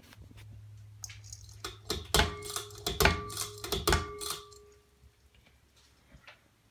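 Harbor Breeze ceiling fan humming low, then a quick run of sharp clinks and knocks with a short ringing tone, after which the hum dies away.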